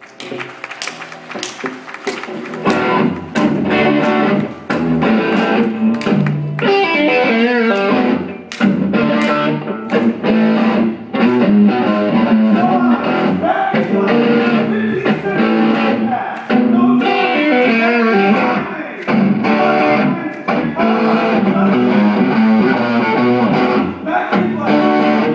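Electric guitar playing many quick picked notes and chords. It comes in suddenly and swells to full loudness within the first few seconds.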